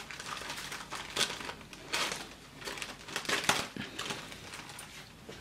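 Plastic courier mailer crinkling and rustling as it is cut with scissors and pulled open, in irregular bursts that are loudest a little past three seconds in and thin out near the end.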